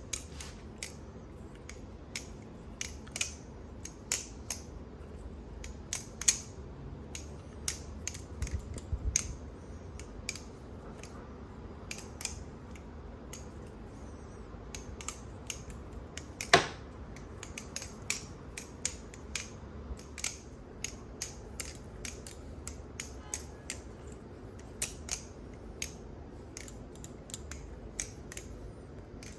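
Balisong (butterfly knife) being flipped: its metal handles swing about the pivots and clack against each other and the blade, giving an irregular run of sharp clicks, with one louder clack a little past halfway.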